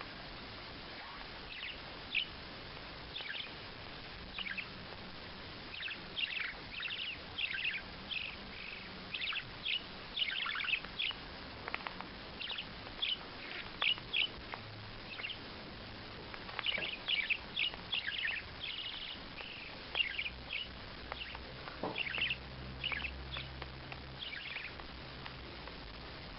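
Many short, high chirping calls in irregular clusters over a steady background hiss.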